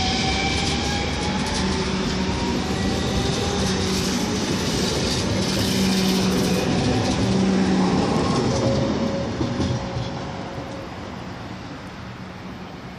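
DB class 425 electric multiple unit accelerating away from the platform: its motors give a faint rising whine under the rumble and click of the wheels over the rail joints. The sound stays loud for about eight seconds, then fades as the train draws away.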